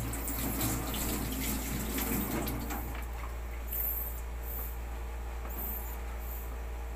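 Tap water running into a stainless steel sink as squid fins and skin are rinsed, dying away after about three seconds; then a knife working squid on a plastic cutting board, with a few short high squeaks.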